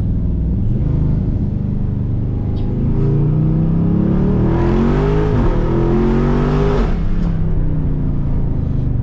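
Jeep Grand Cherokee SRT's V8 heard from inside the cabin. It pulls steadily, then accelerates hard from about three seconds in, with a gear change midway through the pull, and eases off near seven seconds.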